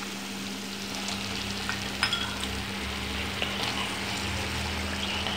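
Onion masala sizzling in an earthenware chatti on the stove, with a few light clicks of a steel spoon against the pot.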